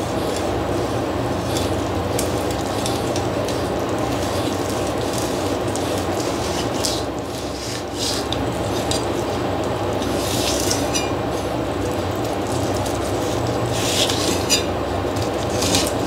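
Chinese cleaver slicing through a fish fillet on a wooden chopping board: a steady scraping rasp of the blade against the board and flesh, with a few sharp clicks in the second half.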